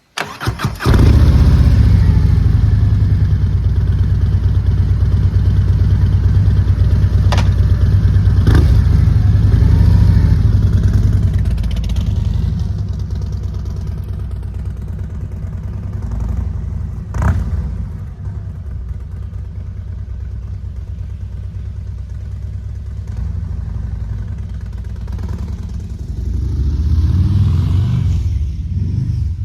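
Harley-Davidson Road Glide's Milwaukee-Eight 117 V-twin, fitted with Rinehart slip-on mufflers, cranking and starting about half a second in, then running at a fast idle that drops to a lower idle after about twelve seconds. Near the end, the revs rise briefly.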